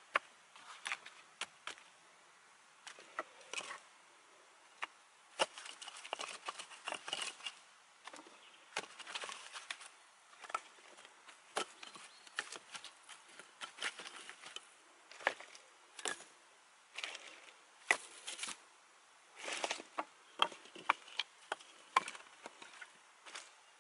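Dry dead sticks and branches knocking and clattering against each other as they are picked up and stacked by hand, with rustling of twigs and dry grass between the irregular sharp knocks.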